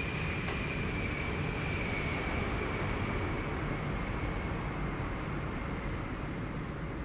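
Jet airliner engines on landing approach: a steady rush of engine noise with a high whine that slowly drops in pitch.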